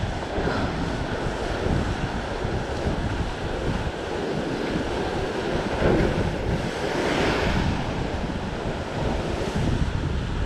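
Atlantic surf washing and breaking over the rocks below, with wind buffeting the microphone in low rumbles; the surf swells briefly about seven seconds in.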